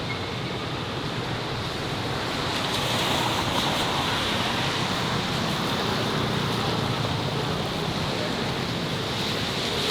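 Steady roar of city street traffic, an even wash of noise that swells slightly about three seconds in.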